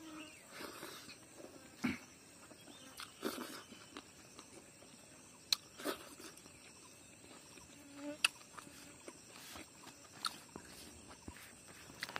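Someone eating by hand: scattered soft clicks and smacks of chewing and of fingers picking at rice on a banana leaf, with a faint steady high insect drone behind.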